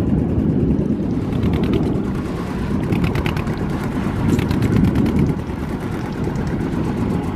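Inboard engine of a wooden fishing launch running steadily under way, a fast, even chugging.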